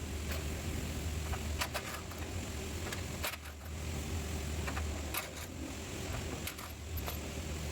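Sharp metallic clicks and clinks from hand tools and fasteners being handled during bumper removal, about eight scattered through the stretch, over a steady low hum.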